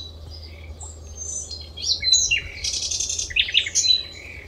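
Several small birds chirping and whistling: a busy run of short high calls, quick falling sweeps and a fast trill, loudest in the second half.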